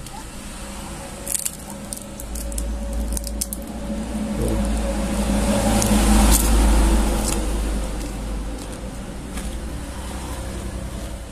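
Crinkling clicks of the paper wrapper around a martabak telur as it is handled, over a low rumble that swells about six seconds in and then fades.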